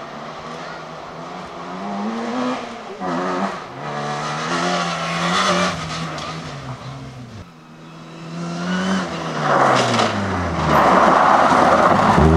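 Rally car engines on a gravel stage. A car accelerates through the gears and away, its engine note climbing and dropping with each shift. Then an Opel Adam rally car arrives hard, with a loud hiss of gravel under its tyres and its engine loud near the end.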